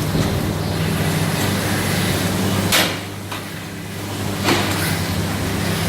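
Rotary milking parlour machinery running with a steady low hum and hiss, broken by two sharp knocks, the first nearly three seconds in and the second about a second and a half later.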